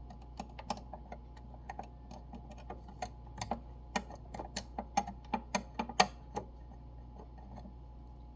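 Irregular small hard clicks and taps of a coin against metal, as a quarter is fitted into the slot of a sewing-machine face-plate screw and worked to turn it. The clicks come thickest in the middle, with the loudest about six seconds in.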